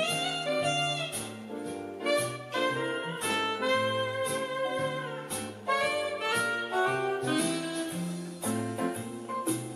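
Instrumental background music with a steady beat and a bass line stepping from note to note.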